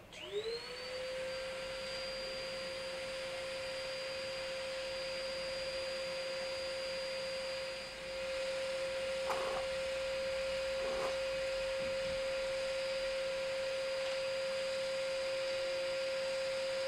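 Parkside electric scroll saw starting up, its motor whine rising in pitch over the first half second and then holding as a steady high hum while it drives a narrow sanding strip against the wood. The hum briefly dips about eight seconds in.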